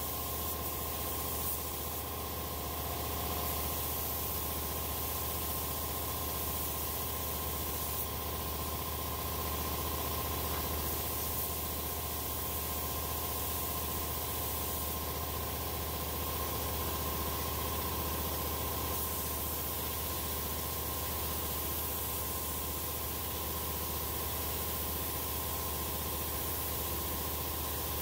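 Air hissing from a Neiko 31207A HVLP mini gravity-feed spray gun as it sprays clear coat, over a steady low motor hum.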